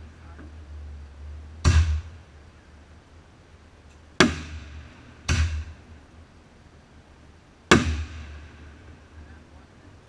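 Aerial fireworks going off: four loud bangs at uneven intervals, each followed by an echo that dies away.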